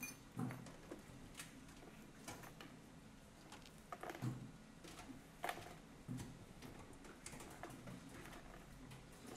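Broom and dustpan sweeping up shards of a dropped drinking glass on a tiled floor: faint, scattered light clicks and clinks at an uneven pace.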